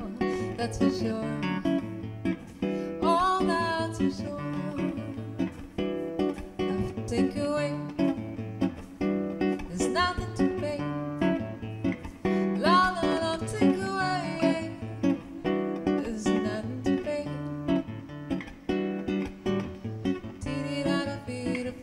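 Live duo music: a guitar playing chords under a woman singing in several phrases, with sliding vocal lines about three seconds in, at ten seconds and again around thirteen seconds.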